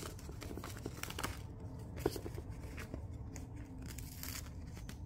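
Handmade notebook-paper envelope being pulled open and paper cutouts handled: paper rustling and crinkling with short crisp clicks.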